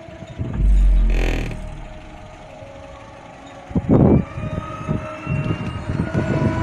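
Bass-heavy music playing through a custom 8-inch car subwoofer, heard from outside the car: a long deep bass note starts about half a second in and fades, then a run of short, punchy bass hits starts about four seconds in.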